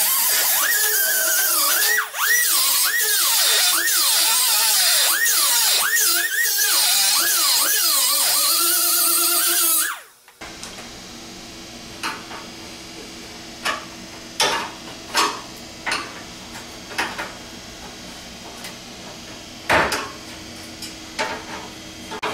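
Pneumatic air drill drilling out rivets in the steel core support panel: a loud whine whose pitch repeatedly sags and recovers as the bit bites. It stops about ten seconds in, leaving a faint steady hum and scattered light metallic clicks and taps as the rivets are worked loose by hand.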